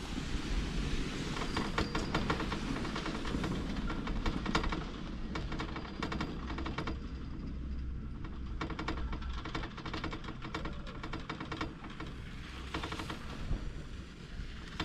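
Poma chairlift haul rope and chair grips running over tower sheaves: fast runs of rattling clicks, like a train's clickety-clack, over a steady low rumble.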